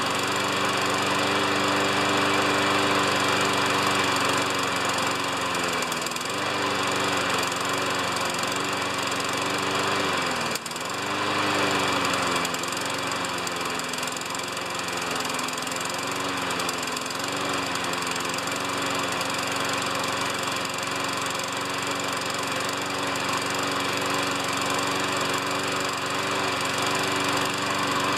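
A Briggs & Stratton push-mower engine is running while smoking off oil that had flooded it. It runs unevenly, wavering several times and dipping sharply about ten seconds in before picking back up, not yet running smoothly.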